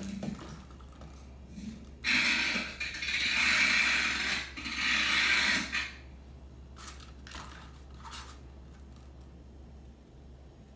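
Small toy pumpkin being batted by a Bengal cat, sliding and rolling across a hard floor: a rough scraping run of about four seconds starting about two seconds in, then a few light taps.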